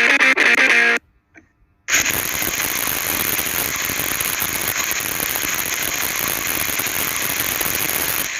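A pet talking bird gives a short pitched call. After a brief pause it makes a long, harsh rasping noise lasting about six seconds.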